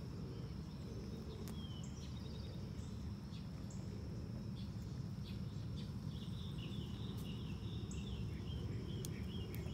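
Outdoor ambience after rain: a steady high insect drone over a low rumble, with scattered short chirping calls that grow busier in the second half.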